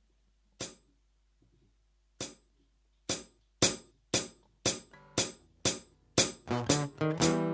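Finhol stompcon foot percussion box playing a bright, hi-hat-like hit: two single hits far apart, then a steady beat of about two a second. Near the end acoustic guitar strumming joins in over it.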